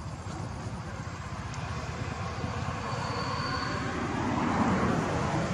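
A motor vehicle's engine running, a low pulsing drone that grows steadily louder as it approaches.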